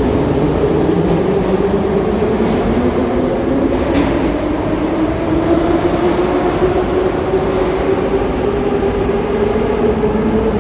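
Moscow metro train at the platform, a steady loud rumble with a motor whine that rises slowly in pitch as the train gathers speed.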